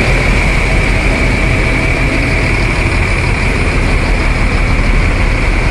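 Diesel engines of queued coach buses idling close by, a steady low rumble with a constant high whine on top.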